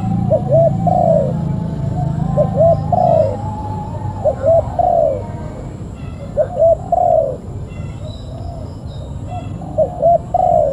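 Spotted dove cooing its three-part 'kuk-kuk-kurrr' phrase five times, two short notes then a longer falling one, about every two seconds.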